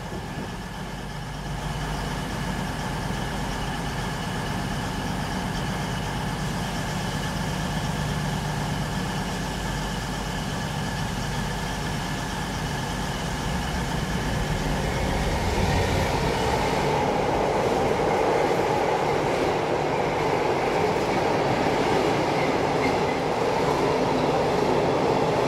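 Diesel-hauled freight train passing through the station. A steady diesel engine hum fills the first half. From about fifteen seconds in, a louder rumble of the wagons rolling past on the rails takes over.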